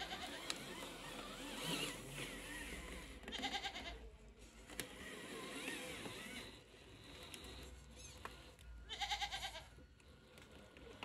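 A goat bleating twice, about three and a half seconds in and again about nine seconds in, each a short wavering call.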